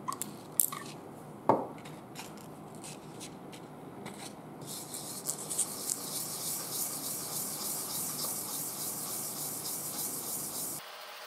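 A pump oil can clicking as it squirts oil onto wet sandpaper, and a knock, then from about five seconds in a steady rasping hiss of a hydrostatic transmission's cylinder block being rubbed in small circles on oiled 600-grit wet sandpaper, lapping its worn face flat. The rubbing cuts off suddenly near the end.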